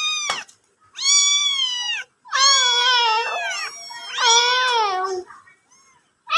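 Domestic cat meowing loudly and repeatedly: three drawn-out meows, each about a second long and falling in pitch at the end.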